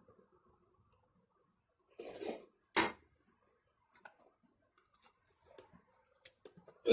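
A short rustle about two seconds in, followed at once by a single sharp knock, then a few faint clicks.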